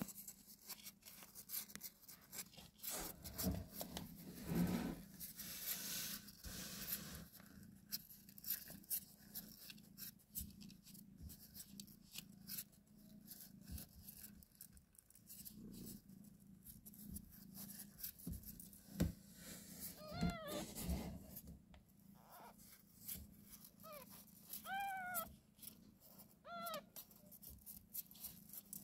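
Newborn kittens mewing while nursing: a few short, high-pitched cries in the second half, amid soft rustling and clicks.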